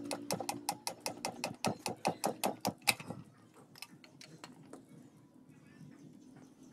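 Rapid, evenly spaced metallic clicks, about five a second, from a long screwdriver worked against the front wheel bearing in a motorcycle wheel hub. They stop about three seconds in.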